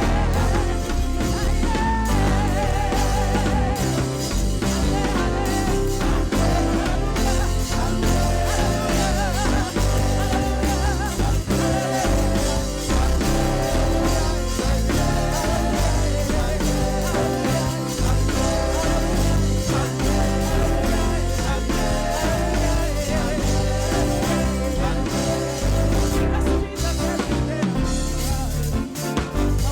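Live gospel praise-and-worship music: a full band with bass, drums and guitar playing while voices sing over it.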